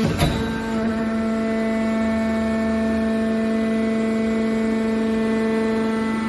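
Hydraulic power unit of a scrap metal baling press running: a steady motor-and-pump hum with a strong held pitch. A single sharp knock sounds just after the start.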